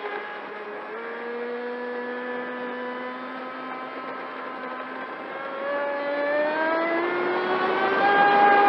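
Pro Boat Sonicwake 36 RC boat's brushless electric motor whining on a 4S battery, over the hiss of water along the hull. The whine holds a steady, lower pitch at part throttle, then rises and grows louder from about five seconds in as the boat speeds up.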